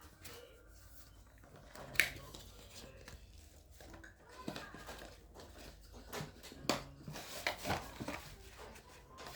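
Handling noises from unpacking a fitness band's box: scattered light clicks and knocks with some rustling of packaging, one sharper click about two seconds in and a busier stretch in the second half.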